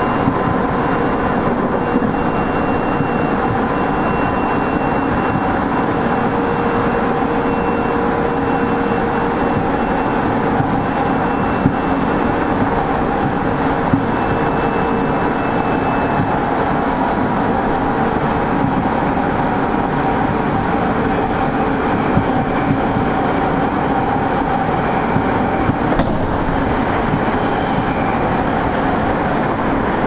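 Tobu 30000 series electric train running at speed, heard from inside the car: a steady rumble of wheels on rail with a few light knocks, over several steady high whine tones from the traction motors and drive.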